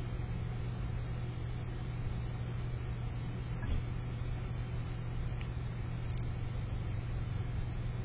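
Steady low hum over a constant hiss, with a few faint, very short high sounds.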